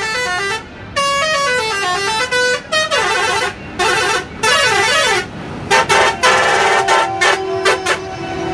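A truck's musical horn, loud, playing a tune. It starts with falling runs of stepped notes, moves to a rising-and-falling warble, then ends in a string of short, quick blasts.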